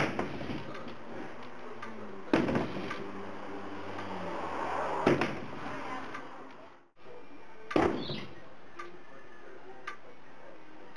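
Four loud bangs on a wooden shed wall panel, about two and a half seconds apart, each with a short rattle after it, as blows try to knock the panel free; a couple of fastenings are still holding and it does not come down.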